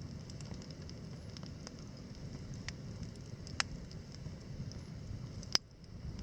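Wood campfire burning steadily with soft crackling and three sharp pops, the loudest about five and a half seconds in.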